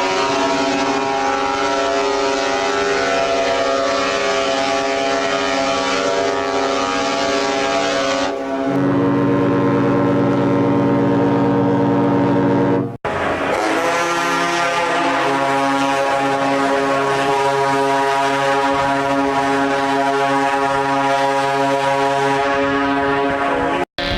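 Ship's horns sounding long, steady blasts, several tones at once. A deeper horn joins about eight seconds in. The sound cuts abruptly to another ship's horn about halfway through, which holds its chord until another cut near the end.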